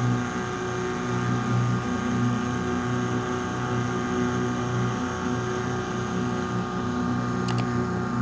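Small boat's motor running steadily at constant speed, a continuous hum with a low, even drone.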